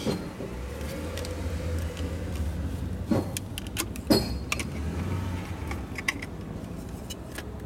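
Plastic vacuum-cleaner attachment parts being handled and fitted together, giving a few sharp clicks and knocks, the loudest about four seconds in, over a steady low hum.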